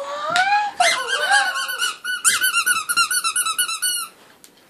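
Rubber squeaky dog toy squeaked rapidly over and over, about six or seven squeaks a second. There is a short break about two seconds in, and the squeaking stops shortly before the end.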